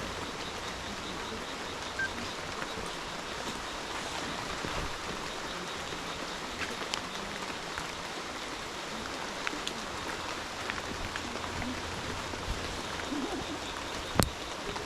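Steady rain falling, with scattered drops tapping close by and one sharper tap near the end.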